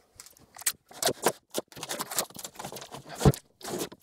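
Cardboard shipping box being cut open: a utility knife slitting the packing tape and cardboard, with the cardboard scraping and rustling in short irregular strokes, and one heavy thump about three seconds in.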